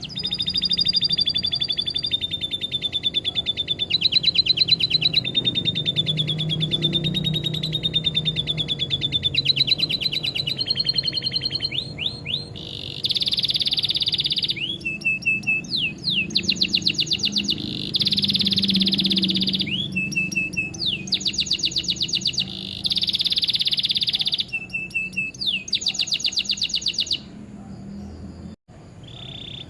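Domestic canary singing a long, continuous song of fast trills and rolls. In the second half it alternates dense buzzy stretches with short sweeping notes.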